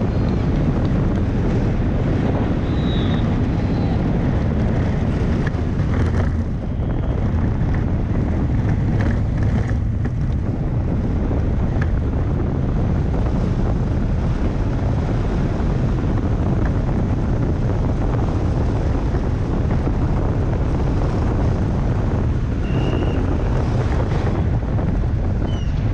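Wind rushing over the onboard microphone and wheels rolling on asphalt as an engineless soapbox car coasts downhill at about 50 to 65 km/h. The noise is loud and steady, with a few brief high squeaks.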